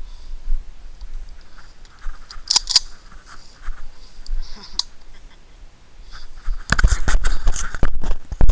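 Handling noise on a small action camera's built-in microphone: a low rumble with a few sharp clicks, then, from near the end, loud rapid knocking and rubbing as a finger grips the camera over the lens.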